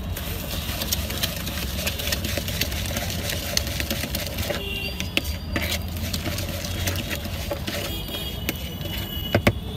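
Puffed rice and spices being stirred by hand in a plastic mug, a fast rustling crackle, over the steady low rumble of street traffic; a few sharp knocks near the end.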